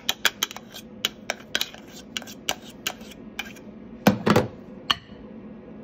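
Metal spoon clicking against a pan and plate while mousseline purée is scooped out, the taps coming quickly at first and then thinning out. A louder clatter of kitchenware follows about four seconds in.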